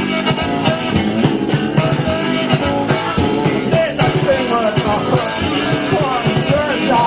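Live rock band playing: drums, electric guitar and a saxophone, with a singer at the microphone.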